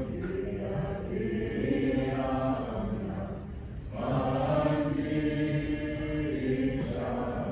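Voices singing a slow hymn with long held notes. One phrase fades out a little after three seconds in and a new one starts at about four seconds.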